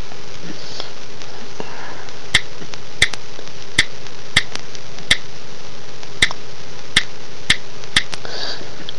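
Key clicks from an iPod touch's on-screen keyboard as letters are typed, about a dozen short sharp clicks at an uneven typing pace, over a steady background hiss.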